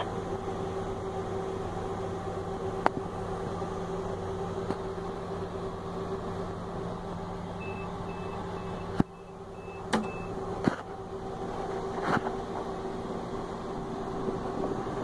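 Diesel-electric locomotive engine running steadily, heard from inside the cab as a low hum. A few sharp clicks sound through it, and a string of short high beeps comes around the middle.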